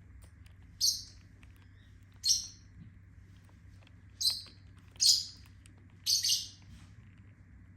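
Lovebird giving short, high-pitched chirps, five in all about a second or two apart, the last one drawn out into a double call.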